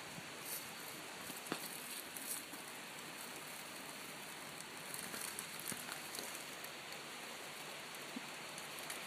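Steady outdoor rushing noise, with a few faint crackles of dry leaves and tinder being handled.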